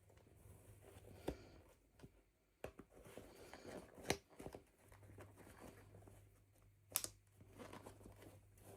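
Quiet handling of toy packaging being opened: soft crinkling and tearing, with a few sharp clicks a few seconds apart.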